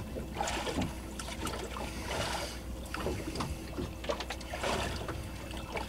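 Water lapping and slapping against the hull of a boat sitting on the water, in washes every second or two over a steady low rumble, with a few light clicks and knocks from handling on deck.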